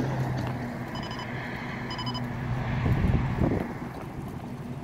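Car driving at highway speed: steady road and wind noise with a low engine hum, and a heavier low rumble about three seconds in. Short electronic beeps sound twice in the first half.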